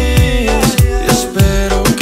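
Latin pop song playing: a steady drum beat under pitched instrumental accompaniment.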